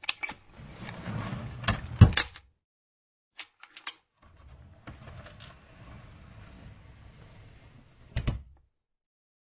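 A furniture drawer sliding in its runners and knocking shut about two seconds in, with the handle rattling briefly. It then slides again, longer and quieter, and knocks shut once more a little past eight seconds.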